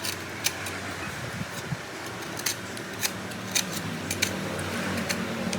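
Scattered sharp clicks and small scrapes of hand tools working on a subwoofer speaker as it is taken apart, over a faint steady hum that grows slightly louder in the second half.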